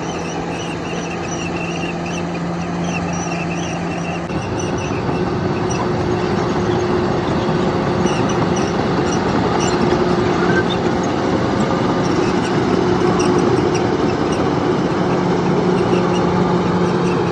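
Bulldozer's diesel engine running steadily; about four seconds in its pitch shifts and it gets louder, as if taking load. Rapid high chirping squeaks sound in the first few seconds.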